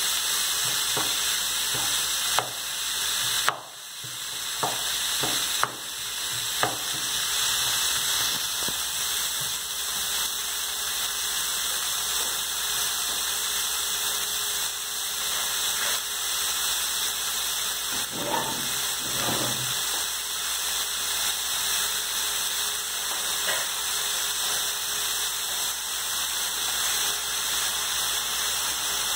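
Diced bell peppers, onion and garlic sizzling steadily in oil in a frying pan, softening on the heat. There are a few short knocks in the first several seconds as the wooden spoon stirs and strikes the pan.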